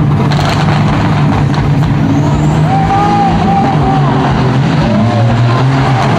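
Two heavy diesel semi trucks hauling loaded trailers of about 70,000 lb, accelerating side by side at full throttle in a drag race. Their engines make a loud, steady, low drone.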